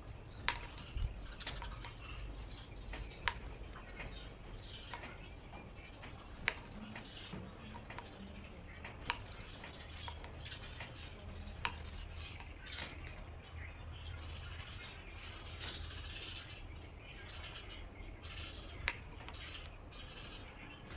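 A small bird pecking at a motorcycle's side mirror, attacking its own reflection: sharp single taps every few seconds, with wing flutters and chirps in between.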